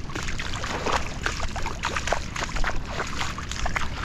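Shallow water sloshing and splashing in uneven strokes as a person wades through it, over a low steady rumble.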